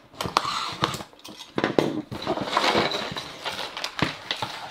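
A small cardboard box being cut open along its seal with a blade and its lid pulled up: a run of sharp clicks, scrapes and rasping cardboard and tape noises.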